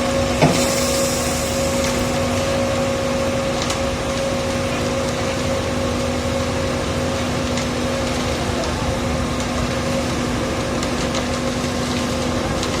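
Diesel engine of a mobile concrete mixer pump running steadily, with a short knock about half a second in.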